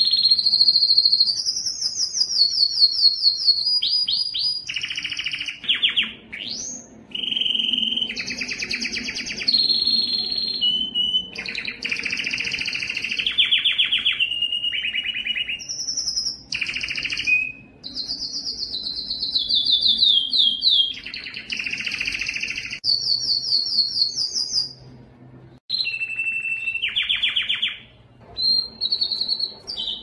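Canary singing a long, nearly unbroken song of fast trills and rolls, switching to a new phrase every second or two, with a short break about 25 seconds in.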